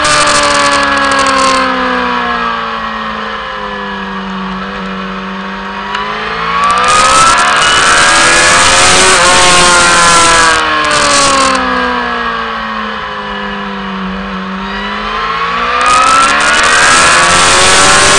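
Motorcycle engine heard from an onboard camera over a constant rush of wind noise. The revs fall as the rider slows, climb hard about six seconds in, drop again a few seconds later and climb once more near the end.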